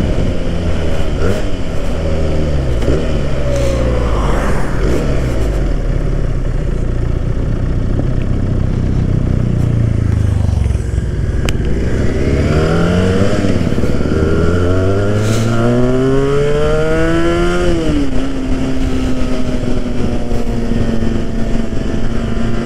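Benelli 302R motorcycle's parallel-twin engine heard from on board while riding. The revs fall over the first few seconds, then climb in several rising sweeps through the gears from about halfway, and settle to a steady cruise for the last few seconds.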